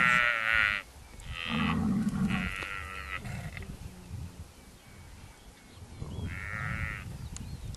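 Newborn Cape buffalo calf bellowing in distress, high-pitched calls four times: one at the start, two close together about one to three seconds in, and one more about six seconds in. The bellowing is the calf's distress call as hyenas press in on it.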